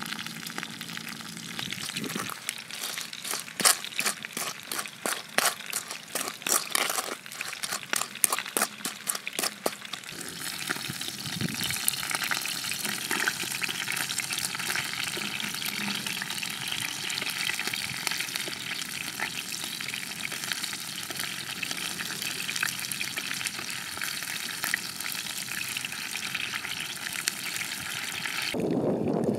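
Food sizzling in a pan while a wooden spatula stirs it: a run of quick scraping strokes against the pan for the first several seconds, then a steady sizzle that cuts off near the end.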